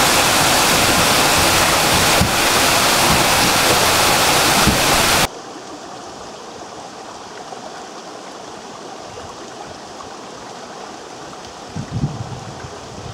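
A small waterfall pouring onto stones: a loud, bright, even rush, recorded through a BOYA BY-PVM1000L microphone. About five seconds in it cuts abruptly to a shallow mountain stream running over rocks, much quieter and duller through the Panasonic HC-V700 camcorder's microphone, with a brief low rumble near the end.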